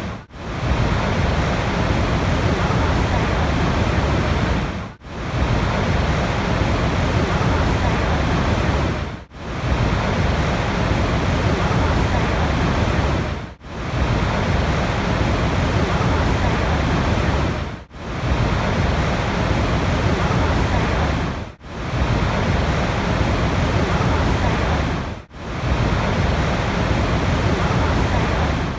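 Steady rushing water with a deep, full low end. It breaks off in a brief sharp dip about every four seconds and resumes at once.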